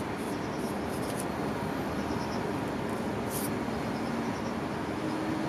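Steady low background rumble and hiss, with a few faint, brief high clicks.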